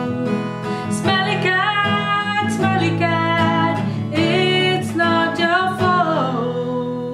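A woman singing over a strummed acoustic guitar, her voice sliding and bending through long ornamented phrases.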